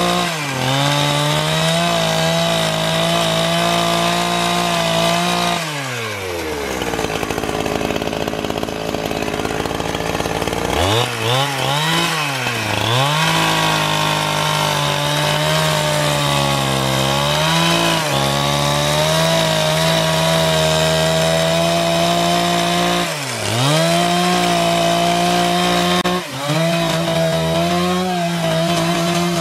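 Chainsaw running at high revs, cutting wood. About six seconds in the throttle is let off and the engine falls to idle, then it revs back up about eleven seconds in, with several brief dips in pitch later on.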